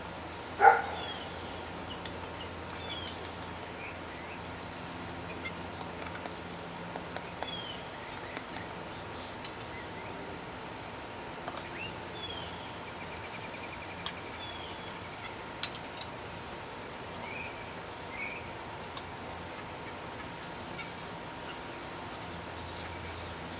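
Outdoor ambience of scattered small bird chirps over a steady high thin tone, with one short, loud animal call about a second in and a few faint clicks.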